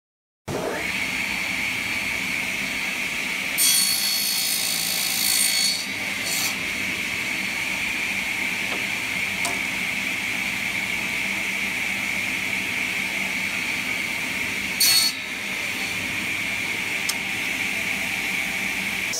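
Circular table saw ripping thin hardwood strips. It starts abruptly about half a second in and runs with a steady high whine. It gets louder and harsher twice, for about two seconds around four seconds in and briefly near fifteen seconds.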